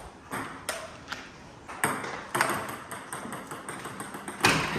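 Table tennis ball clicking off the paddles and the table in a casual rally, a string of sharp ticks at uneven intervals, the loudest near the end.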